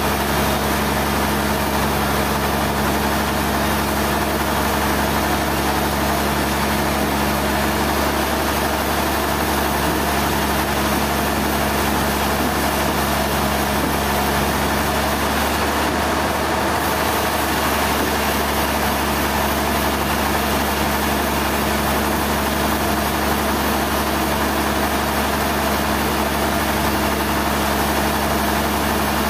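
An engine or machine motor running steadily at one speed, a constant hum with no change in pitch or load.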